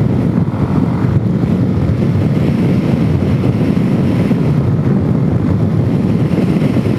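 Suzuki DRZ400S single-cylinder four-stroke engine running steadily under way, through an aftermarket exhaust fitted with a full spark arrestor, with wind buffeting the microphone.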